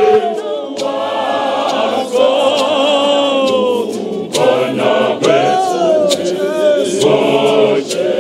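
Mixed choir of men's and women's voices singing a Zulu gospel song a cappella, in harmony, with long held notes that glide in pitch.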